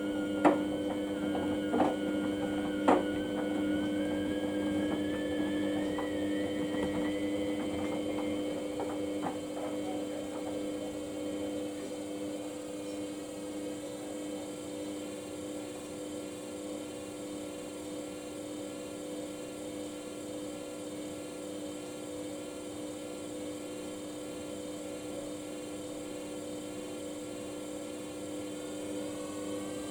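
Samsung washing machine running with a steady motor hum. A whine rises in pitch over the first several seconds as the drum speeds up, with a few sharp knocks in the first few seconds, then settles to a steady running sound. Another rising whine starts near the end.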